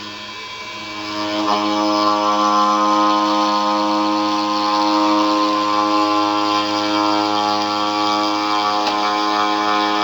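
CNC router spindle running at a steady high-pitched whine. It gets louder about a second in, as it cuts the wood.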